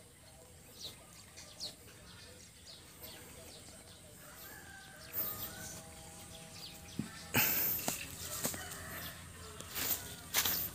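A bird's drawn-out call, held for about two seconds, about five seconds in. Loud rustling, scraping noises follow from about seven seconds and again near the end.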